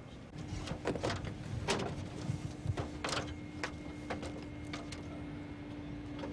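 Scattered clicks and knocks as a pilot climbs a stepladder and settles into a Harrier jet's open cockpit, over a steady hum that starts just after the beginning.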